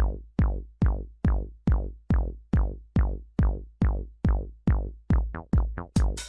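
Electronic drum-machine beat: a deep kick drum hitting steadily about two and a half times a second, each hit dropping in pitch. Near the end it speeds up into a quick roll and breaks into a brighter, fuller beat.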